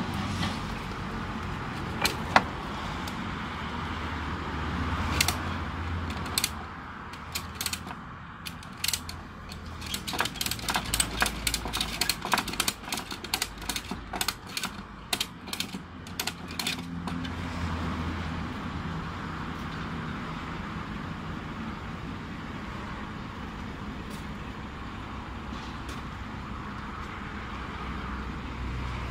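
Ratchet strap buckle being worked to tension cargo webbing on a truck, its pawl clicking in quick runs, thickest in the middle, over a steady low rumble.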